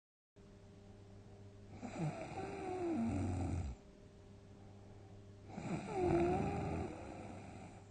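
A person snoring heavily in deep sleep: two long snores about four seconds apart, each with a wavering pitched tone running through the rasp, and quiet breathing between them.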